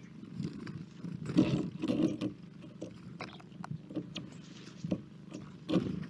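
Animals foraging on a wooden bird-feeder platform: irregular clicks, knocks and rustling scrabbles, loudest about a second and a half in and again just before the end, over a steady low hum.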